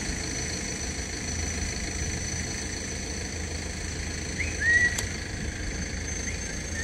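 Car engine idling steadily, a low even rumble, with a brief chirp and a sharp click about five seconds in.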